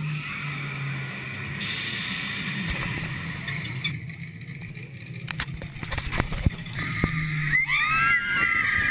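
Roller coaster train starting out of the station, with wind and handling noise on a handheld action camera's microphone. The noise grows louder toward the end, where a high, wavering sound comes in.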